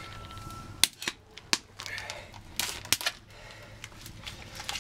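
Wood fire crackling in a stove built from steel car wheel rims: a few sharp pops, with softer rustling between them.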